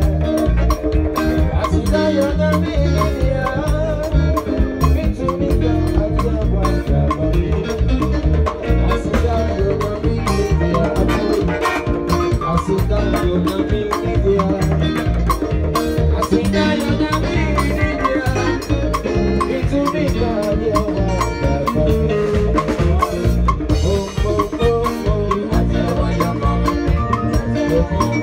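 Live band playing a gospel number, with a moving bass line under a steady drum beat.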